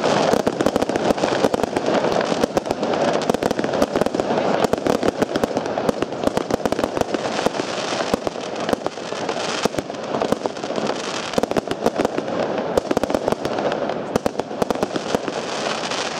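Sweetlake Defence firework going off: a dense, unbroken stream of bangs and crackles, many reports a second, as its shots burst overhead.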